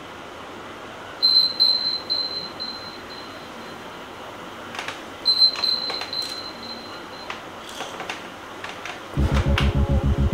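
Phone alarm beeping in a high tone, in quick pulses that fade out over a few seconds. It sounds twice, about a second in and about five seconds in, followed by a few light taps. Near the end, louder music with a heavy pulsing beat comes in.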